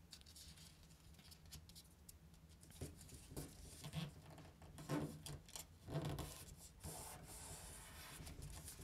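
Faint rustling and rubbing of an A4 paper sheet being folded and creased flat by hand, in a few short scrapes from about three seconds in.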